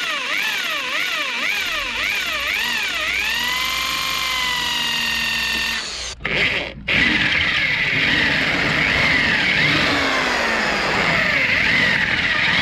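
Electric drill boring out a badge rivet. The motor's whine wavers up and down in pitch, then holds steady; after two short breaks about six seconds in, a louder, harsher drilling sound follows, with the whine falling in pitch near the end.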